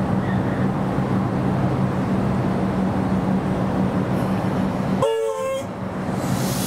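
A train horn gives one short blast of about half a second, about five seconds in, over a steady rumbling background; a brief hiss follows near the end.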